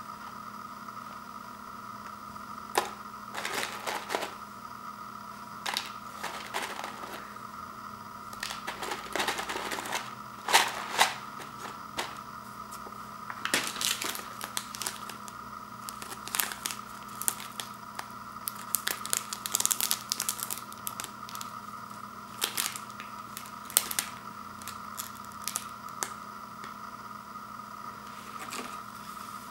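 Plastic packaging crinkling and rustling in irregular short bursts as the peeled-back lid film of an instant yakisoba tray is handled and a foil sauce packet is picked up and opened, over a steady faint hum.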